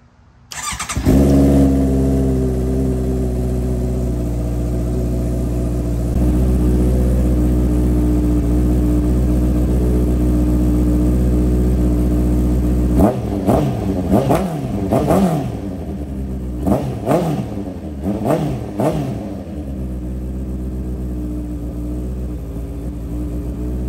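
Honda CB650F's inline-four engine firing up about half a second in and idling steadily, on its new fuel pump and fresh fuel. From about 13 to 19 seconds the throttle is blipped in a quick series of revs, then the engine settles back to idle.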